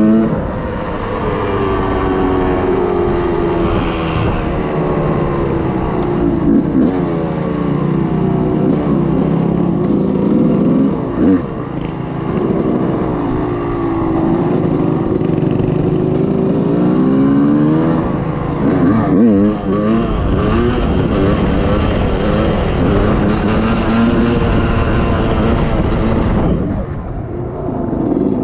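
The single-cylinder four-stroke engine of a Yamaha YFZ450R quad, through an FMF full exhaust, revving hard and easing off again and again while riding. A second engine from the riding partner's bike runs alongside at times.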